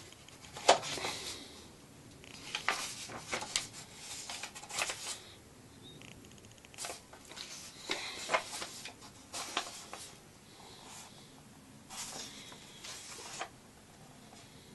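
Book pages being turned by hand: a series of paper rustles and crisp page flips in bunches, the sharpest about a second in.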